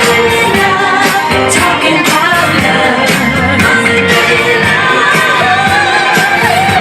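Loud dance music with a singer and a steady beat, played over a sound system, cutting off at the end.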